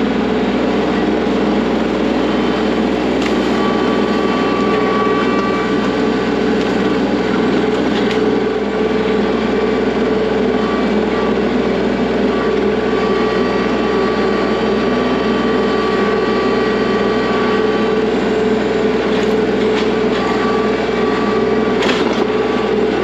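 Kubota L3301 tractor's three-cylinder diesel engine running steadily under work, with a couple of sharp knocks, about eight seconds in and again near the end.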